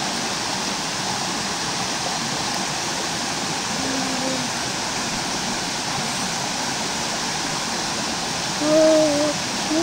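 Mountain stream rushing over boulders into a pool: a steady, even hiss of running water. Near the end a person's voice calls out briefly.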